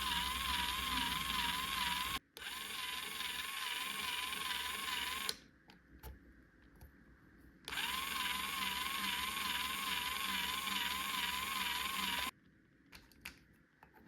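Battery-powered toy electric drill running in three spells of a few seconds each, a buzzing whir with a warbling electronic tone over it. It is switched off and on between spells, and small clicks come in the pauses.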